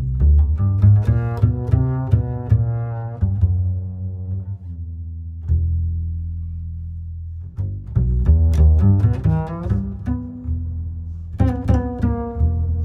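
Background music of plucked and bowed string notes over a steady low bass, in short phrases that thin out to a held note between about four and eight seconds in.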